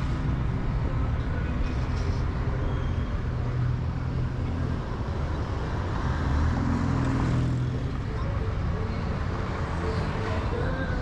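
Car driving along a highway, with steady engine and tyre-on-road rumble and a brief swell in the noise about six seconds in.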